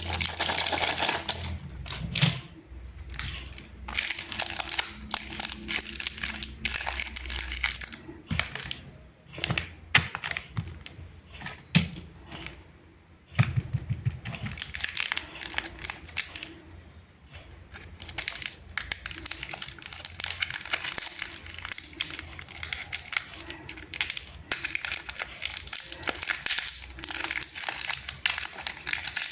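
Plastic candy wrappers and packaging crinkling and tearing as they are unwrapped, with many sharp clicks and taps of handling and a few brief pauses.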